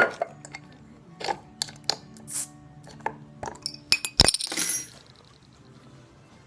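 Glass beer bottle being handled and opened: a string of clinks and taps, a short hiss, and a loud knock about four seconds in followed by a brief rush of noise.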